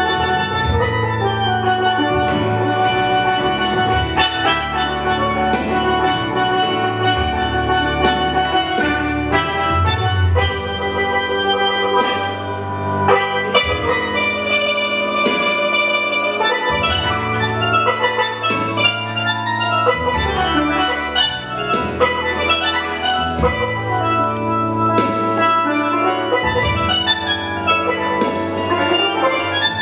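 Steel pan (steel drum) played with sticks: a fast run of struck, ringing melodic notes, over a sustained low bass line that changes every second or two.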